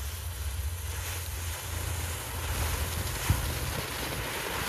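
Small consumer firework, the Dragon X, burning with a steady spraying hiss that builds up, with one sharp crack about three seconds in. Wind buffets the microphone with a low rumble throughout.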